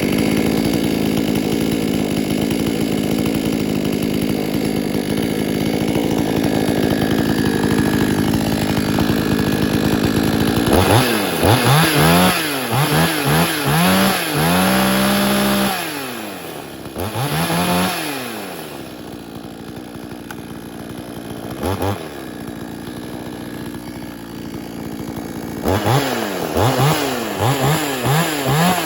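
Stark 6200 XP two-stroke chainsaw running at high revs for about ten seconds, then blipped repeatedly: the engine note swoops up and falls back to idle several times, with a stretch of idling in between.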